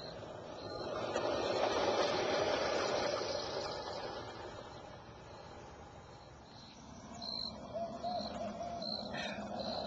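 Woodland night ambience: an insect chirping high and evenly, about once a second, under a rushing noise that swells and fades in the first half. A few short low calls come near the end.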